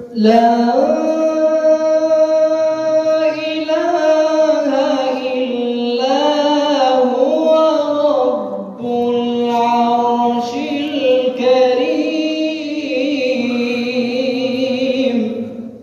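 A young male voice chanting an unaccompanied Islamic religious chant into a microphone, in two long melismatic phrases that glide between held notes, with a brief breath break in the middle. The last held notes waver.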